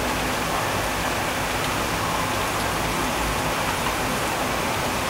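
Heavy rain pouring down steadily, an even hiss with no thunder heard.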